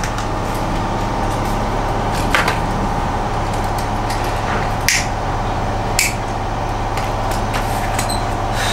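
A steady mechanical hum fills the room, with a few short, sharp clicks on top. The loudest click comes about five seconds in, others about two and six seconds in.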